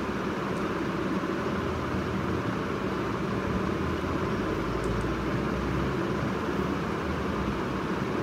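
Steady background hiss and hum of room noise, with a low rumble swelling briefly about five seconds in.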